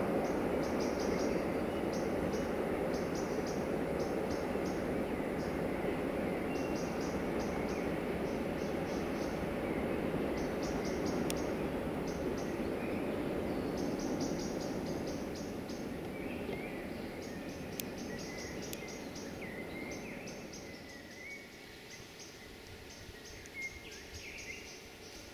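Rapid groups of high insect chirps repeating over a steady rushing rumble that fades away in the second half, with short bird calls near the end.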